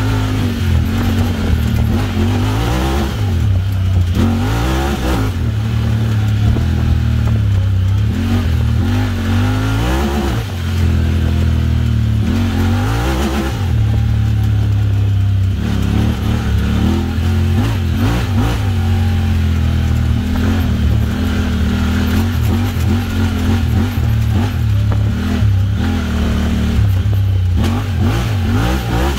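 Honda Talon X side-by-side's parallel-twin engine running through an aftermarket Evo Performance exhaust. It repeatedly revs up and drops back as the machine accelerates and eases off.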